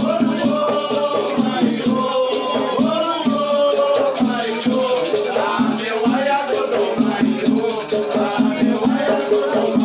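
Batuque ceremonial music: drumming and rattling shakers keeping a steady, driving beat under singing voices.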